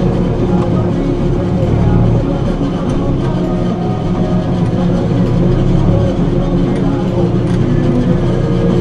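A heavy machine's engine running steadily, with voices heard over it.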